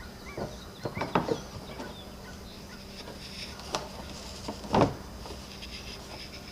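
Handling noise of a windshield being set into place on its mounts: a few light knocks and rubs with small squeaks, the loudest knock near five seconds in, over a steady low hum.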